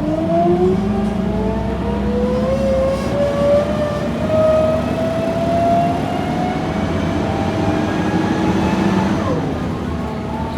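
Gearbox whine from the old gas-engined railbus M/O 4868 as it slowly gathers speed. Several whining tones climb gradually in pitch, then drop abruptly about nine seconds in.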